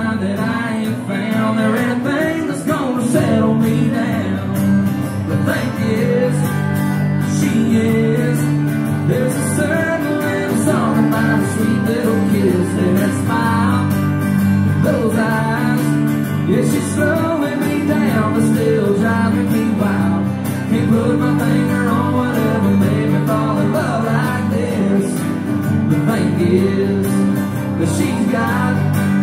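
Live country music: acoustic guitars played with a man singing, amplified through the venue's sound system.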